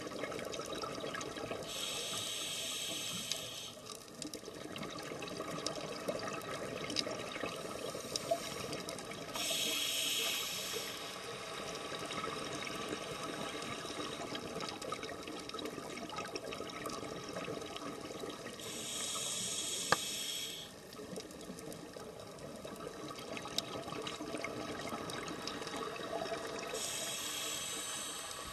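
Scuba diver breathing through a regulator underwater: four exhalations, each a hissing rush of bubbles lasting about two seconds, roughly every eight to nine seconds, over a steady crackle of fine clicks.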